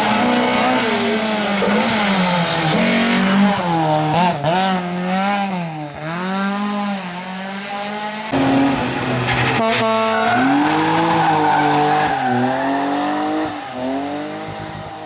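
Rally car engine revving hard up and down as the driver works the throttle through a drift, with tyre squeal. About eight seconds in the sound changes abruptly to another car doing the same.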